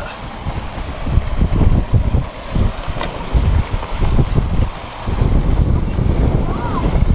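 Wind buffeting the microphone in heavy, uneven gusts that start about a second in, over a fainter steady rush of water from the small falls feeding the pool.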